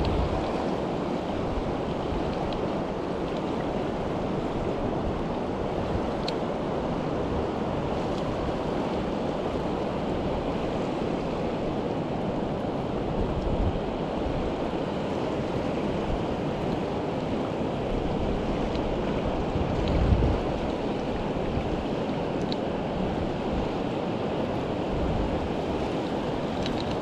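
Fast-flowing Kern River rushing steadily, an even wash of moving water. Two brief low bumps break through, one about halfway and a louder one about two-thirds in.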